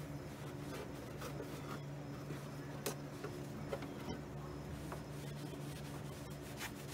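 An applicator pad rubbing cleaner back and forth across the underside of a car hood: a soft, steady scrubbing with a few light clicks.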